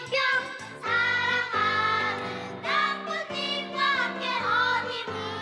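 A group of children singing a song together over a music accompaniment, with several long held notes.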